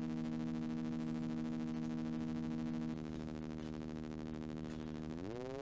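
Moog Model 15 iPad app synthesizer sounding a steady low tone with many overtones. It drops a little in level about three seconds in, and its pitch glides upward near the end.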